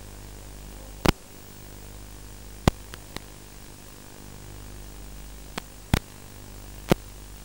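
Steady static hiss and hum from an analog FPV video link's audio channel, broken by several sharp crackling pops where the radio signal breaks up.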